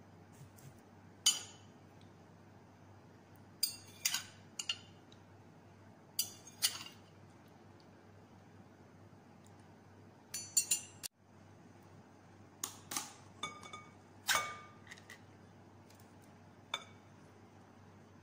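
Metal serving spatula clinking against a glass baking dish and a ceramic bowl while scooping gelatin cubes: a dozen or so sharp, scattered clinks, a few ringing briefly.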